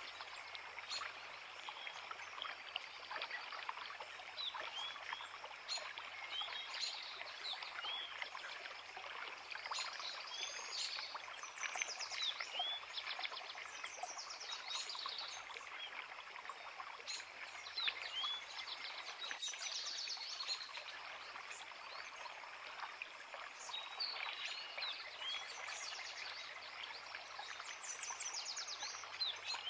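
A creek running steadily, with several small birds singing over it: repeated high chirps, short down-slurred notes and quick trills, the birdsong coming and going in bouts.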